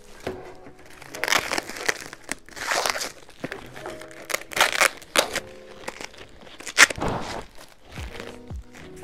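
Plastic packaging being crinkled and rustled by hand in repeated bursts, over background music.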